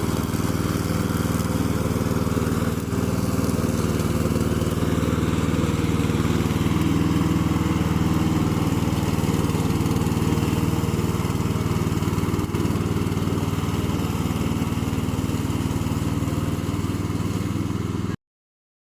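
Engine of a remote-control lawn mower running steadily at a constant speed; it cuts off abruptly shortly before the end.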